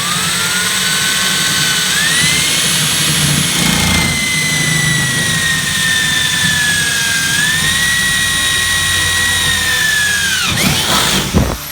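Electric power drill boring through the sheet-metal bed of a pickup truck. Its motor whine climbs as the trigger is pulled, sags and picks up again as the bit loads and frees in the metal, then winds down sharply near the end when the trigger is released.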